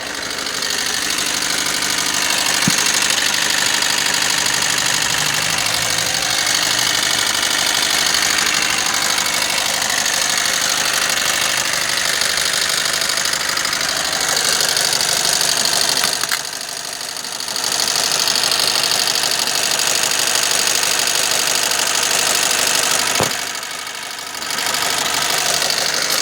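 Opel Antara engine running steadily with a fast, even clatter on top: an extra noise from the side of the engine that the owner cannot identify. The sound drops in level twice, briefly.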